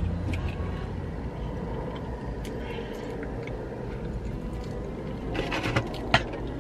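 A car engine idling, heard inside the cabin as a steady low hum, with a few faint clicks and a short mumble of voice near the end.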